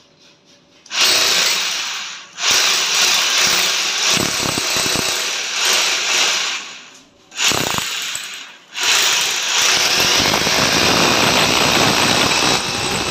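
Corded electric drill with a masonry bit boring into a plastered wall for a 10 mm wall fastener. It starts about a second in, stops briefly around two, seven and eight and a half seconds, then runs steadily from about nine seconds on.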